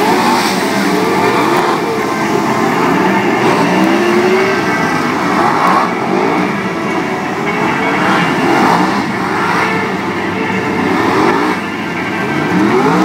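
Several stock car engines racing on a dirt oval, each revving up and backing off in turn as the cars come through the bend, so the pitch keeps rising and falling in overlapping waves.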